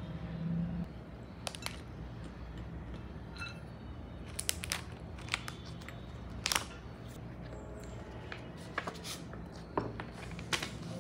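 Scattered light clicks and taps of small objects being handled, about eight in all, over a steady low hum.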